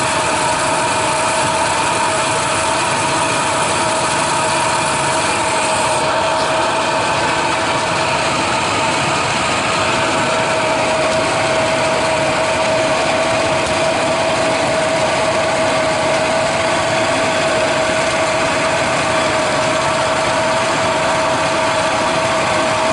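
A motor or engine running steadily, with a constant whine over a dense, even noise.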